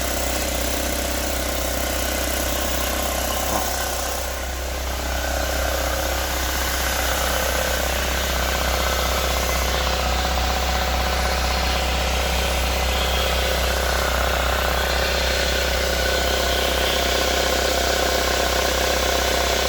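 2005 Chevrolet Corsa 1.6 8-valve engine idling with the clutch pedal pressed, running steadily with an added mechanical noise that appears only when the clutch is pressed. The owner suspects it comes from the flywheel or the crankshaft.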